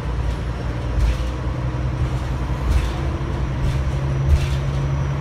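Cabin sound of a 2000 Neoplan AN440A transit bus cruising at speed: a steady low engine drone under road and wind noise. A few short knocks and rattles come through, the loudest about four seconds in.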